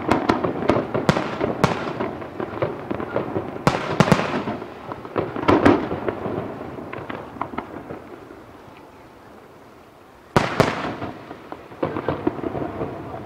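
Aerial fireworks shells going off in quick succession with crackling and echo, thinning out over several seconds, then a single sharp loud report about ten seconds in followed by more crackling.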